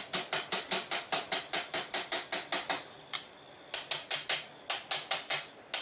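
Rapid light hammer taps on the M1 Garand's gas cylinder as it is driven onto the tight-fitting barrel end, about six taps a second, with a short pause a little past halfway.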